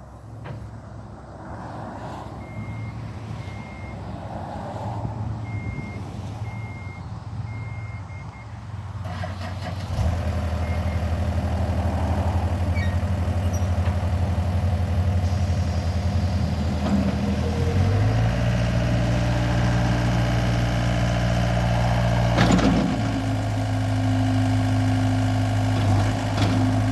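John Deere 319E skid steer: a series of short electronic beeps, then its diesel engine starts about ten seconds in and idles steadily. Around eighteen seconds in the throttle is raised and the engine settles at a higher, louder steady speed.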